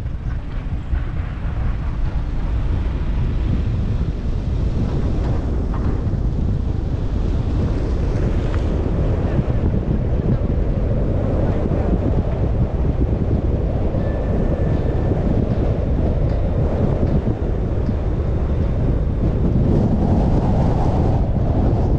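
Steady road and wind noise of a car driving, with wind on the microphone.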